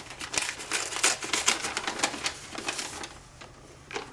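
A paper envelope being torn open and handled: a run of quick crackling tears and paper rustles for about three seconds, then quieter, with one more rustle near the end.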